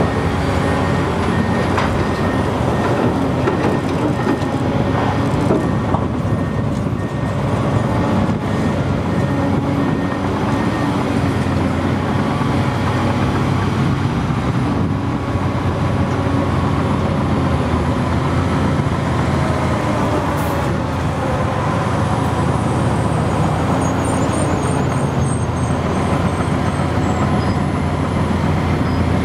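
Komatsu PC800LC hydraulic excavator's diesel engine running steadily under working load as it swings and digs, with heavy diesel hum and hydraulic sound alongside the articulated dump truck it is loading.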